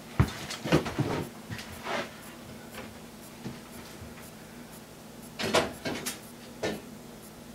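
Several separate knocks and clunks, a cluster in the first two seconds and three more near the end, over a faint low steady hum.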